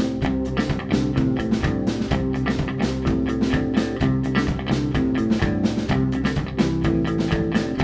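A live band plays the instrumental opening of a rock song, guitar over a steady beat, before the vocals come in.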